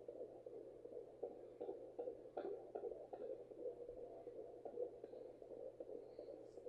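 Home fetal Doppler's speaker giving faint, uneven whooshing static with scratchy clicks as the probe moves over the lower belly, searching for the baby's heartbeat.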